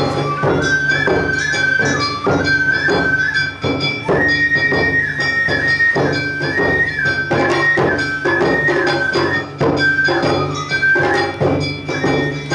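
Awa odori accompaniment (narimono): a bamboo flute melody over a steady beat of drums and a small hand gong.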